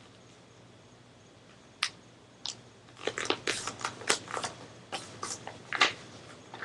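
A sheet of paper being folded and creased by hand. It is quiet at first, with a couple of sharp crinkles about two seconds in. From about three seconds in comes a busy run of crackling and rustling as the folds are pressed flat.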